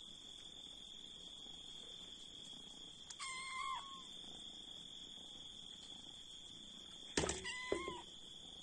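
Cats meowing: one short meow about three seconds in, then a louder two-part call near the end that starts with a sudden knock. A steady high-pitched whine runs underneath.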